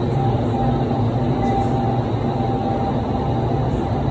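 Vertical wind tunnel running: the steady rumble of its fans and rushing air, with a faint whine on top.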